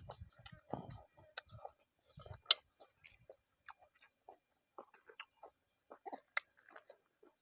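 A person chewing a mouthful of red ant egg salad close to the microphone: irregular small wet clicks and smacks of the mouth.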